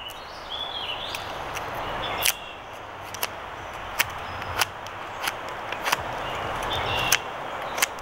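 HAN-313 folding knife whittling a piece of wood: a steady scraping hiss with sharp clicks about every second as the blade bites and shavings snap off.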